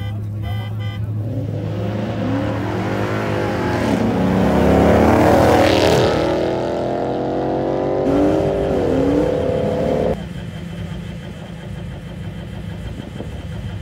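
Cars accelerating hard in a street race and passing close by, engines revving up through the gears. The loudest pass, a Dodge Charger, comes about five seconds in, its pitch dropping as it goes by. Another engine climbs in pitch until it cuts off suddenly about ten seconds in.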